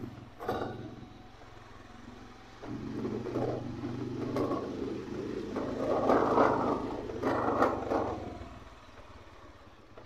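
Honda motorcycle's engine running as it is ridden, louder from about three to eight seconds in, then easing off.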